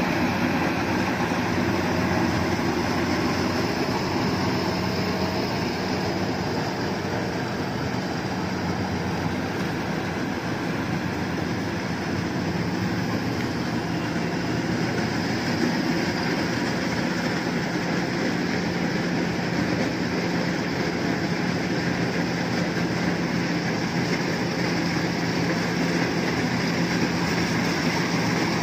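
Iseki HC80 rice combine harvester running steadily as it cuts rice, its engine and threshing machinery making an even, continuous hum.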